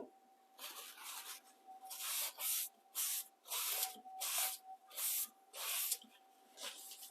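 Sharpening stone drawn across a chef knife's steel edge on a guided sharpening system: a run of short rasping strokes in quick succession, after a single knock at the very start.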